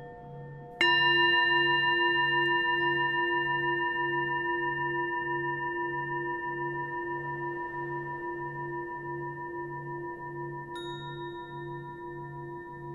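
Ambient background music: a bell-like tone struck about a second in rings and slowly fades over sustained held notes and a soft low pulse about one and a half times a second. A second, higher chime enters near the end.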